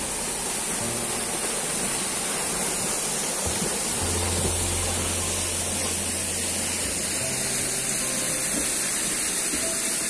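Waterfall rushing steadily into its pool, a loud even hiss of falling water, with soft background music and a few low held notes underneath.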